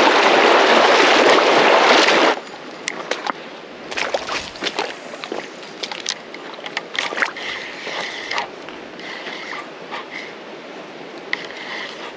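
Creek water rushing loudly over a shallow riffle, cutting off suddenly about two seconds in. After that comes a much quieter stretch of scattered clicks and ticks as a spinning reel and rod are handled.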